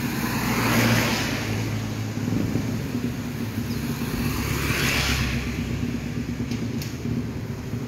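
Traffic passing on a wet road: cars and motorbikes go by over a steady low engine hum. The hiss of tyres on wet tarmac swells about a second in and again about five seconds in.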